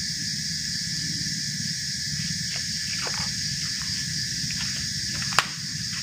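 Steady high-pitched insect drone over a low rumble, with one sharp click about five and a half seconds in.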